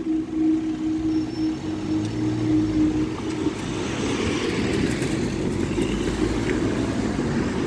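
Level crossing warning alarm sounding a steady pulsing tone as the barriers rise, cutting off about three seconds in; then the noise of road traffic starting to move.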